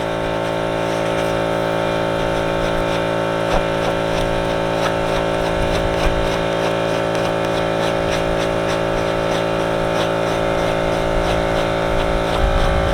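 A machine drones steadily, an engine or motor running at an even speed with a pitched hum. A few faint scrapes or ticks sound over it, as the scraper roughens the rubber tube.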